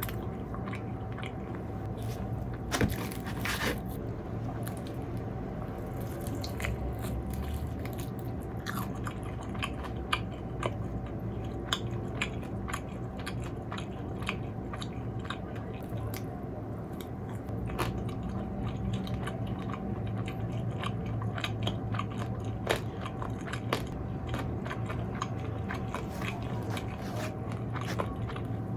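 Close-miked chewing and biting of crispy fried food, with scattered crunches, one of the loudest about three seconds in. A steady low hum of background noise runs underneath.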